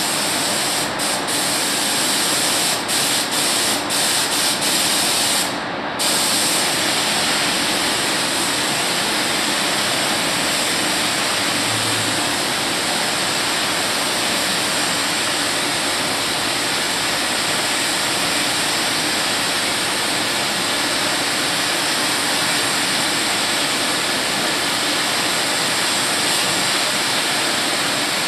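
Compressed-air paint spray gun hissing as it sprays paint onto a car. There are a few short breaks in the first six seconds as the trigger is let off, then one long unbroken pass.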